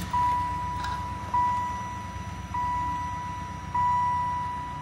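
1996 Chevy Impala SS's dashboard warning chime, most likely the seatbelt reminder, dinging four times about 1.2 seconds apart. Under it is the low steady hum of the just-started 5.7-litre LT1 V8 at idle.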